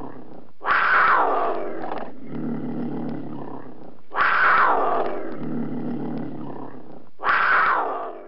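Cougar calling: three loud, harsh cries about three and a half seconds apart, each starting suddenly and falling in pitch, with a lower, quieter sound between them.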